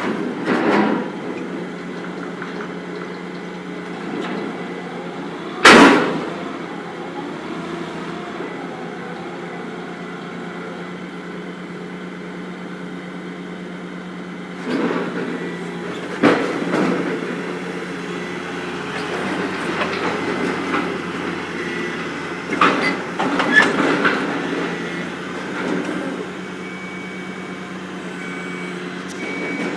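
Heavy machinery running with a steady low hum, broken by metallic knocks and clanks. A single loud, sharp bang comes about six seconds in.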